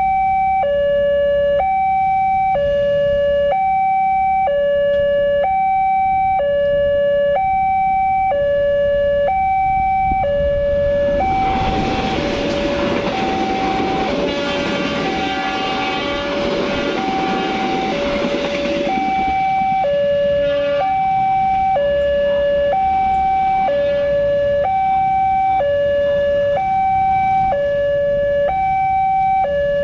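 Indonesian railway level-crossing alarm sounding its two-tone electronic warning, a high and a low note alternating about once a second. From about 11 to 19 seconds in, the KA 406 Commuter Line Dhoho passenger train passes, its wheels rolling loudly over the rails and partly masking the alarm.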